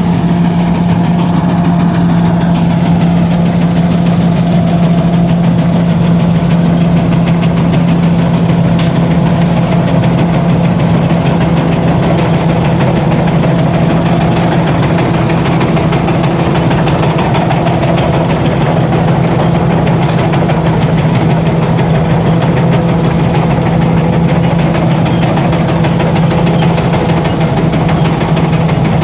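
Rice combine harvester's engine running steadily and loudly, an even low hum with no change in speed, and a thin steady high whine above it.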